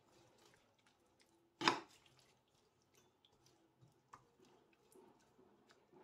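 Plastic slotted spatula stirring chicken and vegetables in broth in a frying pan: faint wet stirring with small ticks, and one sharp knock about two seconds in.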